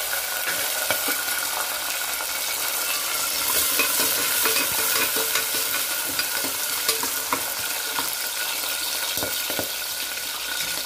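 Green peas and cashews sizzling in hot ghee and oil in a pressure cooker, stirred with a perforated metal ladle that clicks and scrapes against the pot.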